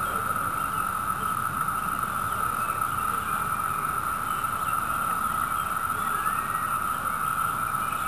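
A massed chorus of Brood II periodical cicadas (Magicicada) singing their mating song, a steady, unbroken, ringing drone of one pitch.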